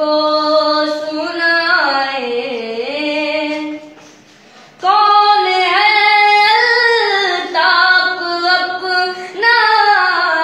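A boy singing an Urdu naat unaccompanied, with long held and gliding notes. He breaks off for about a second partway through, then carries on.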